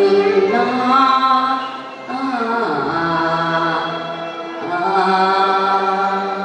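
Cantonese opera singing: a voice holding long, drawn-out notes with instrumental accompaniment.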